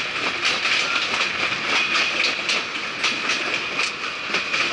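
Passenger train running along the track, heard from an open coach doorway: the steel wheels clatter over the rail joints in an uneven run of clicks over a steady rushing noise.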